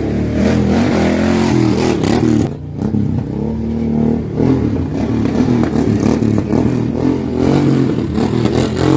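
Motorcycle engines revving, their pitch rising and falling again and again, with a short drop about two and a half seconds in.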